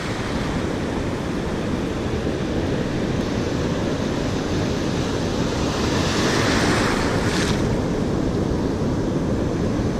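Ocean surf washing in over the beach, with wind buffeting the microphone. A wave rushes in louder about six seconds in.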